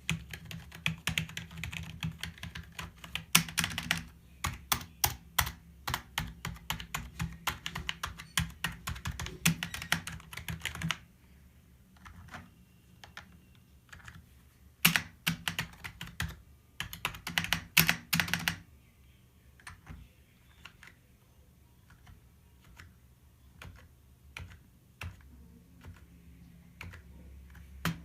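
Typing on a Cosmic Byte CB-GK02 membrane gaming keyboard: fast runs of key presses for about the first eleven seconds, a pause, another quick burst a little past the middle, then scattered single key presses, fainter, near the end.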